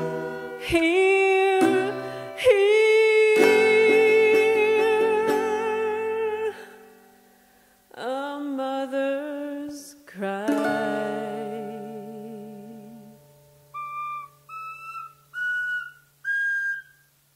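Operatic-style singing with a wide vibrato and long, swelling held notes over a small toy acoustic guitar. After a pause, five short, high whistle-like notes climb step by step near the end.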